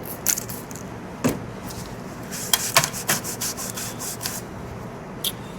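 Hands rubbing and handling a vintage Tropic Air car heater: a string of short scrapes and light knocks.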